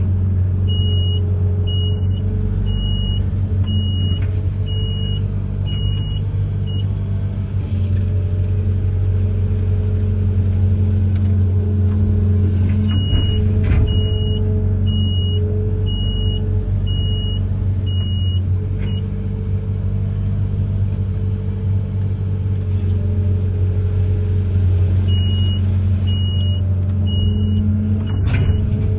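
Amphibious excavator's engine running steadily, with a high electronic warning alarm beeping about three times every two seconds in three runs of several seconds each, typical of a machine's travel or motion alarm.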